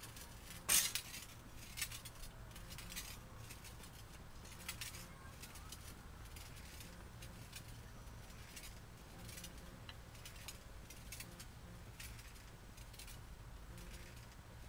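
Wheelchair rocking on aluminium channel rocking tracks: light metallic clicks and rattles about once a second with each rock, the loudest about a second in.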